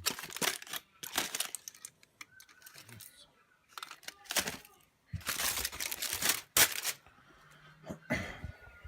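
A wrapper crinkling and rustling in a run of short, irregular bursts, busiest about five to seven seconds in.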